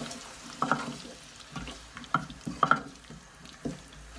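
Wooden spatula stirring and scraping a thick onion and spice paste in an aluminium pot, in irregular strokes, the loudest a little past two seconds in, over a soft sizzle of the paste frying in oil as the spice powders cook.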